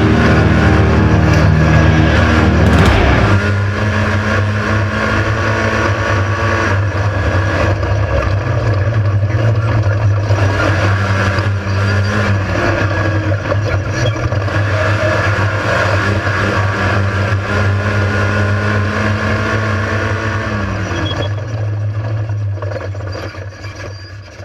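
Off-road race vehicle's engine running hard at a fairly steady pitch, stepping up and back down a few times with changes in throttle or gear. It fades out near the end.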